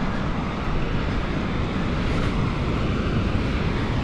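Wind buffeting the microphone over the steady rush of surf breaking below the cliffs.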